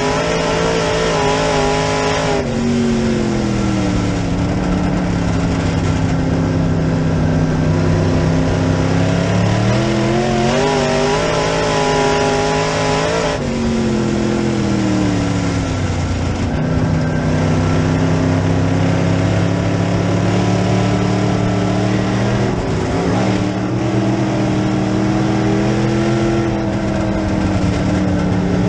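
B-Modified dirt-track race car's engine at racing speed, heard from inside the cockpit. The revs climb and hold high, then drop sharply about two seconds in and again about thirteen seconds in, staying lower for several seconds each time before building again.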